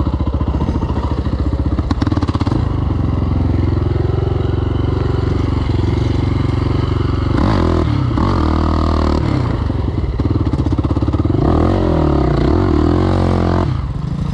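XC 525 quad bike's engine, heard from the rider's seat, running steadily as it rides a dirt track, with the revs rising and falling twice in the second half before the throttle eases off near the end.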